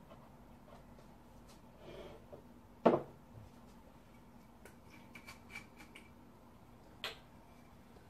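Bottles and bar tools handled on a small table while a cocktail is mixed: one sharp, loud knock about three seconds in, with softer thuds and faint small clicks around it.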